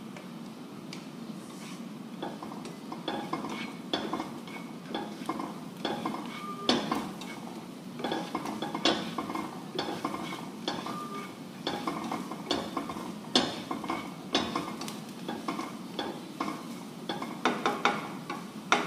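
Slotted plastic spatula stirring chopped onion and celery in a nonstick frying pan, with irregular scrapes and taps against the pan, over a steady low hum.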